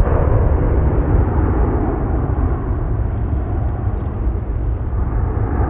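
Boeing 777-300ER's two GE90-115B turbofans at takeoff power as the airliner climbs away: a deep, steady rumble that slowly fades.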